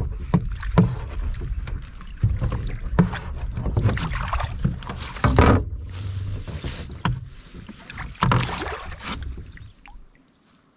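Water splashing irregularly beside a canoe as a fish is released from a landing net held over the side, with a few sharp knocks against the hull and wind rumble on the microphone. It goes quieter near the end.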